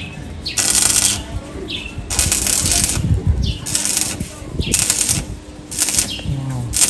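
Rhythmic scraping strokes of a hand tool worked back and forth on metal, about one stroke every second, each stroke preceded by a short falling squeak.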